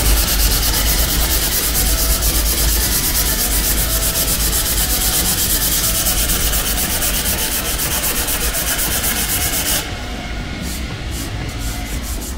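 Sanding sponge scrubbed back and forth by hand over the cured resin coat on a carbon fibre spoiler repair, in quick, even strokes over a steady low hum. The upper hiss of the scrubbing drops away about ten seconds in.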